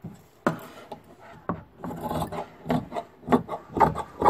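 Tailor's scissors cutting through layers of cotton fabric on a wooden table, a run of scraping snips that come quicker in the second half.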